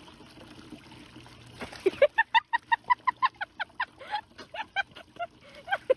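An animal making a rapid run of short, clucking calls, about four or five a second, starting about two seconds in.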